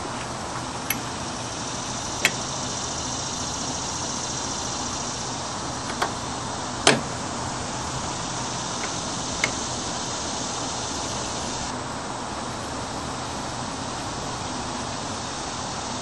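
A few sharp metallic clicks as a 24 mm socket on a breaker bar is fitted onto and worked on a power steering line fitting, the loudest about seven seconds in, over a steady background hum.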